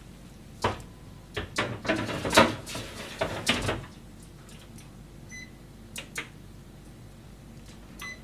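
Clatter and knocks as the fish is put into a gas stove's grill, then two short electronic beeps from the stove's controls, about three seconds apart, as the grill is lit and set.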